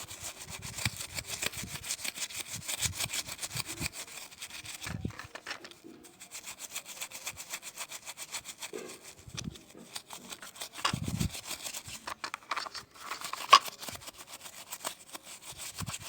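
Fast back-and-forth scraping strokes on a hard surface, many strokes a second, breaking off briefly about five seconds in, with a sharp click near the end.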